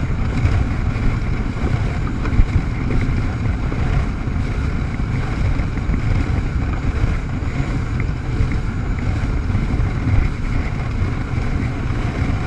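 Jet ski running on open water, its engine and the rush of water mixed with heavy wind buffeting on the camera's microphone. There is a brief thump about two and a half seconds in.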